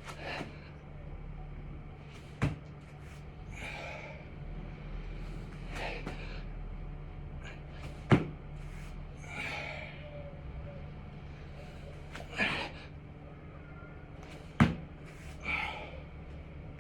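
A man breathing hard with heavy, gasping breaths during 6-count burpees, with a sharp thump from each rep about every six seconds, three in all.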